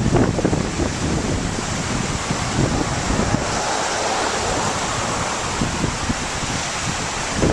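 Gusty storm wind buffeting the phone's microphone: a steady rushing with low rumbling gusts.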